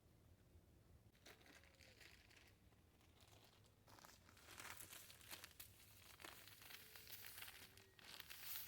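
Faint crinkling and rustling in bursts: a short stretch about a second in, then a denser run from about four seconds on.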